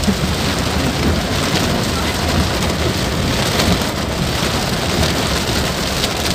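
Heavy rain pelting a car, heard from inside the cabin as a loud, steady hiss.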